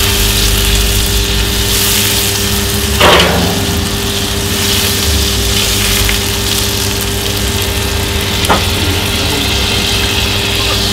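Butter and caramelising brown sugar sizzling in a stainless steel pan over a hot grill while being stirred, with a sharp clink about three seconds in and a fainter one later. A steady low motor-like hum runs underneath.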